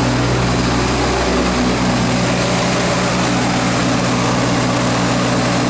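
Hercules IXB engine of a 1954 Hobart 10 kW military generator set running steadily at governed speed.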